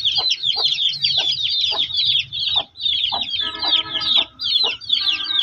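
Chicken chicks cheeping rapidly and continuously, with a hen giving short clucks about twice a second. A longer, drawn-out hen call comes in twice, about three seconds in and near the end.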